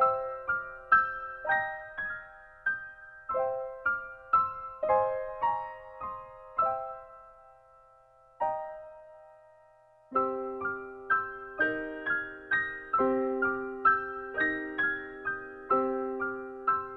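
Slow solo piano background music. The notes thin to a single note about halfway through, then fuller chords come back in.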